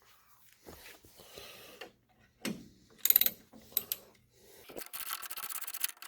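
Crescent wrench and metal parts scraping and clicking on a lawn mower's battery tie-down bolt: scattered knocks and scrapes, then a quick run of clicking and rubbing near the end.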